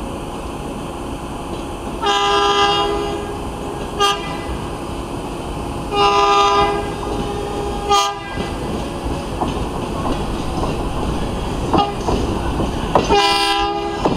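Train air horn sounding in separate blasts, long, short, long, short, about two seconds apart, then one more blast near the end. Under it, the rumble and clatter of the backing train's wheels on the rails, growing louder as it comes closer.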